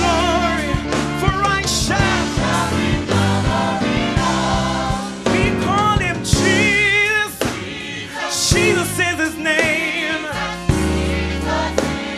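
Gospel music: voices singing with a wavering vibrato over a bass line and drum beat.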